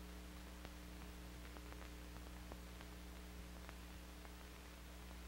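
Faint steady hum and hiss with scattered soft clicks: the noise floor of an old 1970s film soundtrack.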